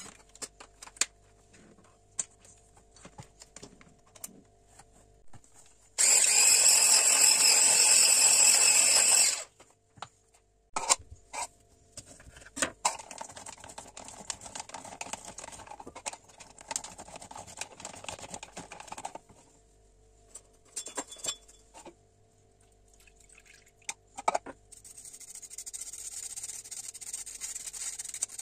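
Electric hand mixer runs for about three and a half seconds, beating butter and powdered sugar in a stainless steel bowl, amid clicks of handling. Then a lemon is pressed and twisted on a plastic citrus juicer for several seconds, and near the end lemon juice is poured through a small metal sieve with a faint hiss.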